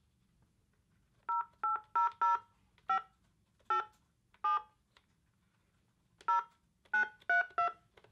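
Touch-tone (DTMF) beeps from a snom desk phone's keypad as an eleven-digit number is dialled by hand, each key press giving a short two-tone beep. The beeps come in uneven groups, with a pause of nearly two seconds in the middle.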